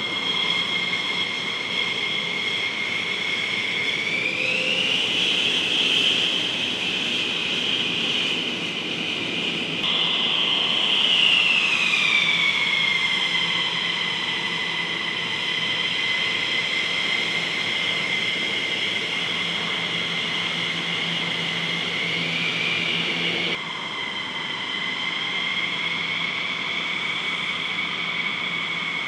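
Twin-engine F-15E Strike Eagle jet fighters taxiing, their turbofan engines giving a high, steady whine over a rushing noise. The whine rises in pitch about four seconds in and falls back around twelve seconds.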